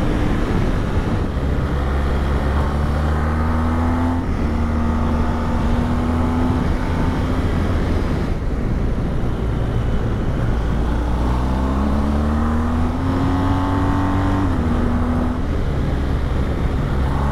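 BMW GS motorcycle engine under way at road speed, with a constant rush of wind. The engine note climbs as it accelerates and drops back twice, about four seconds in and again near the end, at gear changes or as the throttle is rolled off for bends.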